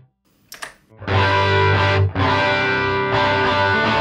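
Electric guitar chords played through a Line 6 POD Go, with a Fender-style amp model pushed by a 10-band graphic EQ set as a mid boost, giving a slightly driven tone. The previous chord is cut off at the start, a short click sounds about half a second in, and the strummed chords start again about a second in, changing about two seconds in.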